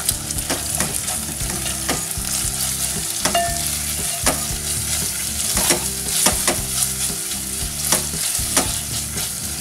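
Wooden spatula stirring cubed chicken with garlic-chilli paste and spices in a pot over a low gas flame, with irregular scrapes and taps against the pot over a steady sizzle of the meat frying.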